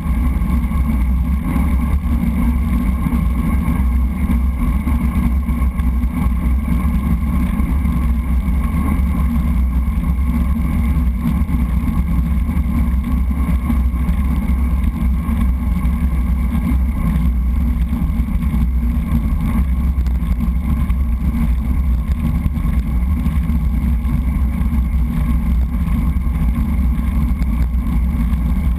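Wind rushing over a bike-mounted GoPro's microphone at riding speed, a steady deep rumble, with road-bike tyres humming on asphalt underneath.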